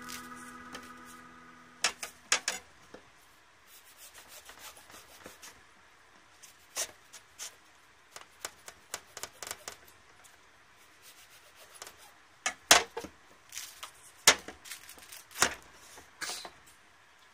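Thick banpeiyu pomelo peel and white pith being torn by gloved hands and pared with a knife: intermittent scraping and rubbing with sharp clicks, the loudest two a little past the middle. A held musical tone fades out in the first two seconds.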